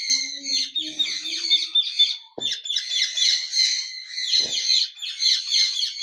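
Many small pet parrots chattering and chirping at once, a continuous mix of rapid, overlapping high calls.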